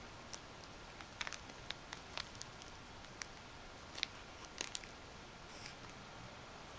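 Scattered light clicks and taps, about a dozen at irregular intervals with a quick cluster of three about two-thirds of the way through, over a faint steady hiss.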